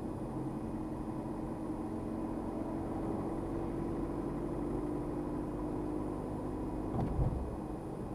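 Car engine and tyre noise heard from inside the cabin while driving at a steady town speed. About seven seconds in the engine note drops away with a brief thump.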